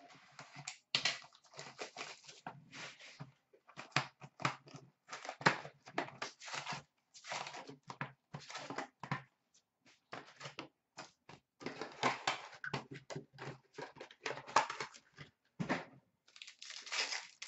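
Hockey card hobby box being opened by hand and its wrapped packs pulled out and stacked: rustling, crinkling and light tapping of cardboard and pack wrappers in quick, irregular bursts.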